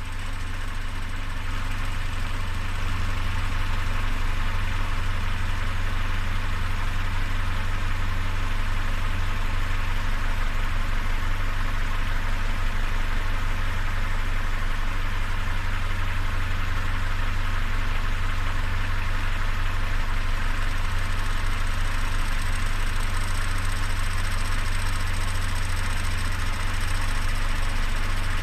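Peugeot 407's EW10A 2.0-litre four-cylinder petrol engine idling steadily, recorded for a strange noise that the owner has not identified.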